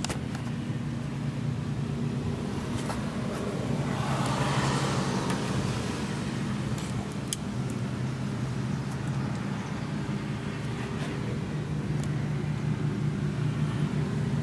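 Steady low mechanical hum, with a louder rushing swell about four to six seconds in and a few light clicks.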